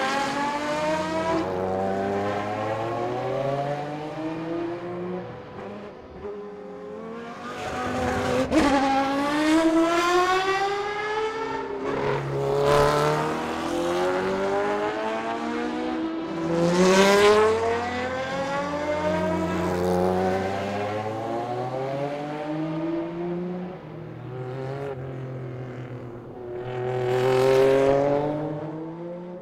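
Historic racing cars at full throttle, passing one after another, each engine's pitch climbing and then dropping back at every quick upshift. Several loud pass-bys come through, the loudest about a third of the way in, past the middle, and near the end.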